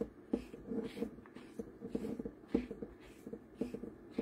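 Keyless chuck of a 21V cordless drill being twisted by hand, giving irregular clicks and rubbing as a bit is fitted and the chuck is tightened. The drill motor is not running.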